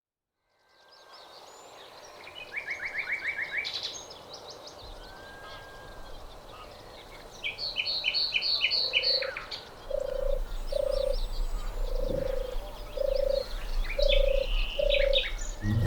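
Wetland birds singing in a reed bed: a mix of quick chirps and rapid trills from several birds. From about nine seconds in, a low short call repeats about once a second beneath them.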